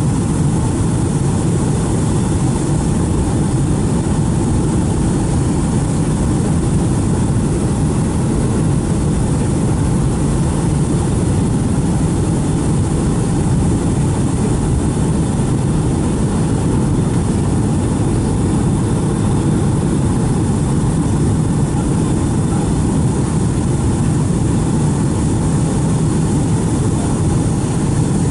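Steady cabin drone of a Boeing 757-200 on approach: jet engine and airflow noise heard from inside the passenger cabin, deep and unchanging throughout.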